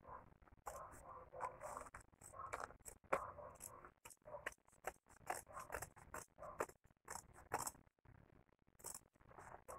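Large serrated kitchen scissors snipping through the side seam fabric of a pair of shorts: a rapid, irregular run of short cuts, with a brief pause near the end.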